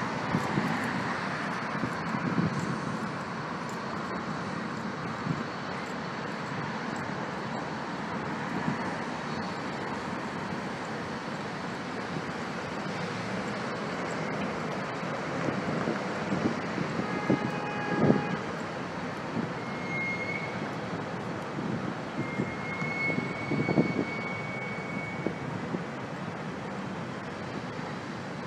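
Double-stack container cars of a freight train rolling over a steel girder railway bridge: a steady rumble and clatter of wheels on rails. A louder clunk comes past the middle, and a thin, high squeal sounds for a few seconds near the end.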